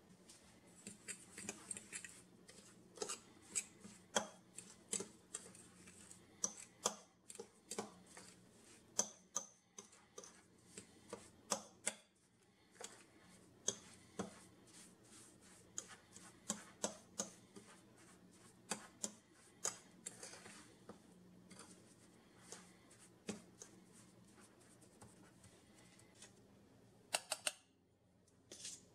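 A metal fork stirring a crumbly cornmeal mixture in a ceramic bowl, clicking and scraping against the bowl in sharp, irregular taps about once or twice a second.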